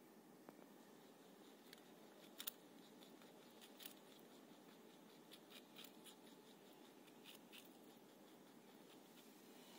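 Dwarf lop rabbit biting and chewing a raw carrot: faint, irregular crisp crunches over a steady low background hiss.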